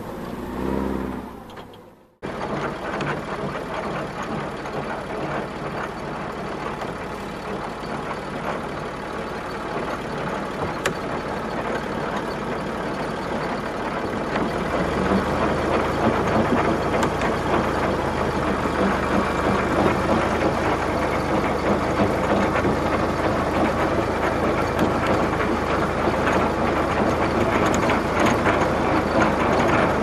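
A heavy vehicle's engine running steadily, starting after a brief dropout about two seconds in and growing stronger about halfway through as a low hum joins it.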